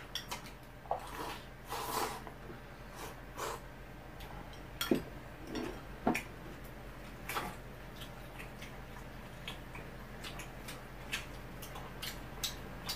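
Eating sounds at a meal of braised spicy chicken: sharp clicks of spoon and chopsticks against bowls and plates, with short chewing and smacking noises in between, over a steady low hum.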